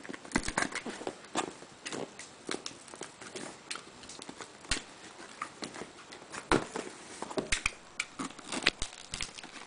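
Cardboard shipping box being worked open by hand: fingers scratching and tearing at the flap and paper label, with irregular small clicks and crackles of cardboard and paper. The box is proving hard to open.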